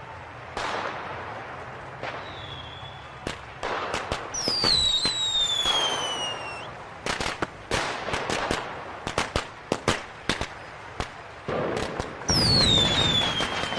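Fireworks going off: shrill whistles that slide down in pitch, rushing bursts, and a run of sharp cracks and bangs in the middle, with another falling whistle near the end.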